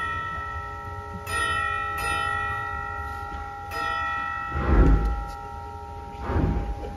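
1929 Wurlitzer theatre pipe organ playing a slow passage on its chimes, struck bell tones ringing on and overlapping. Twice in the second half, about five and six seconds in, heavier swells with a low thud come in.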